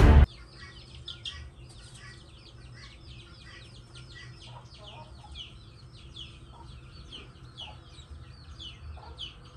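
Chicks peeping: many short, high, falling peeps, several a second, overlapping, with a few lower clucking calls among them. Loud music cuts off just after the start.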